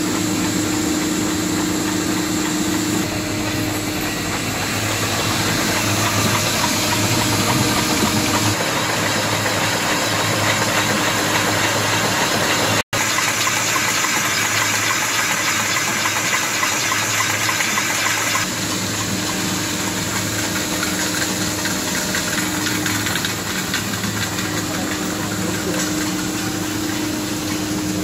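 Dishwasher tablet press and production line machinery running: a steady mechanical hum under a loud hiss. The sound cuts out for an instant about halfway through and then carries on.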